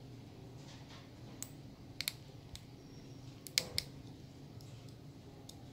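Knife blade clicking and scraping against the stainless steel caseback of a 1960s Seiko Sportsmatic 5 as it is pried at to open the watch. A handful of sharp metallic clicks, the loudest a close pair about three and a half seconds in.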